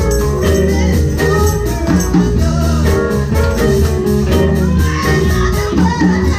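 Live blues band playing an upbeat blues number, with a strong bass line under guitar and vocal lines.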